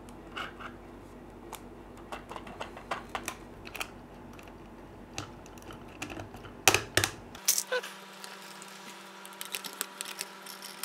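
Light clicks and knocks of 3D-printed plastic jet-engine parts being handled and pushed together, irregular throughout, with a quick run of louder clicks about seven seconds in.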